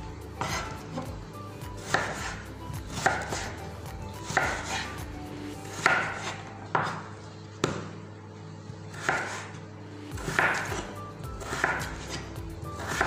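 Kitchen knife slicing a raw peeled potato into fry strips on a wooden cutting board: a sharp cut and knock on the board about every second and a half.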